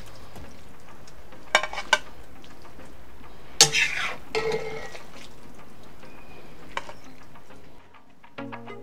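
A metal spoon scraping and clinking against a cast-iron kazan and a plate as cabbage stew with meatballs is scooped out: a few separate clinks, the loudest about halfway through.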